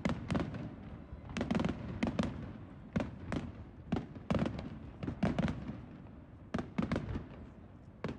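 Aerial fireworks bursting overhead: an irregular run of sharp bangs and pops, many coming in quick pairs and clusters.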